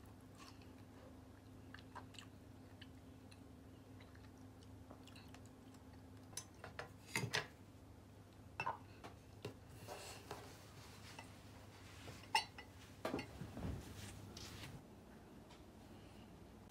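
Tableware being gathered onto a wooden plate: a drinking glass with a wooden spoon in it, a footed glass dessert bowl, a fork and a knife set down and shifted. It gives scattered light clinks and knocks, mostly in the middle and later part.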